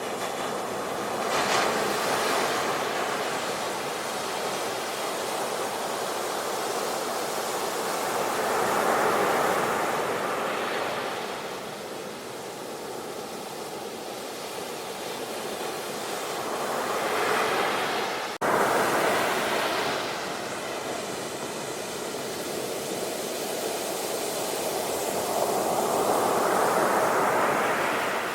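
Sea surf: waves breaking and washing up the shore, swelling and ebbing every several seconds. There is a brief break in the sound about eighteen seconds in.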